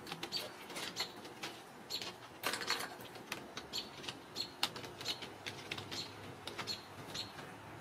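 A scatter of light, irregular clicks and taps from kittens scrambling on a wooden cat stand and batting a plastic ball-track toy, mixed with brief high chirps from small birds outdoors.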